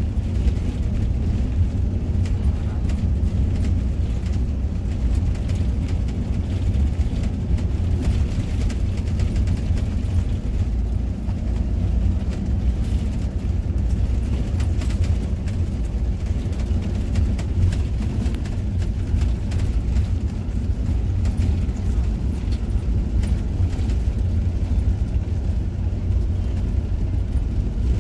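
Inside the cabin of a moving intercity coach: engine and road noise as a steady low rumble, with faint rattles.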